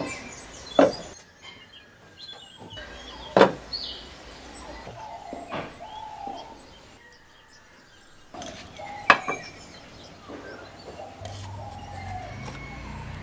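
A few sharp knocks of utensils and clay pots being handled and set down on a wooden counter, with birds chirping faintly in the background.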